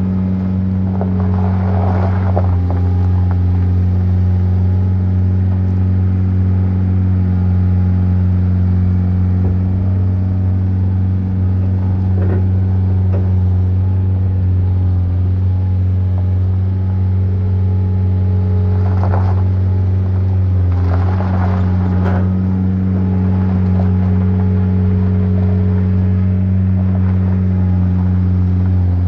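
An engine running steadily at a constant speed, a deep even drone, with short rattles and clanks a few times over it.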